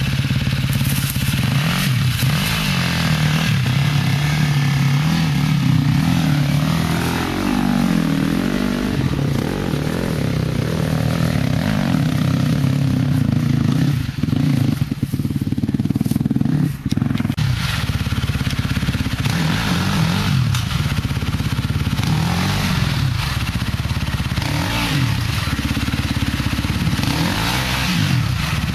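Off-road dirt bike engine being ridden over rough trail, its revs rising and falling again and again as the throttle is worked, with a couple of short breaks in the middle.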